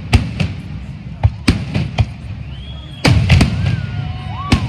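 Fireworks display: a series of sharp bangs and pops, with a dense cluster of reports about three seconds in. A few short rising-and-falling whistles sound in the second half.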